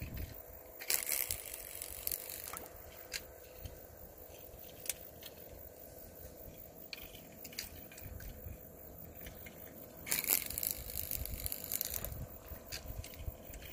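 Crackling, crunching rustle in two bursts, a short one about a second in and a longer one about ten seconds in, with a few scattered clicks between.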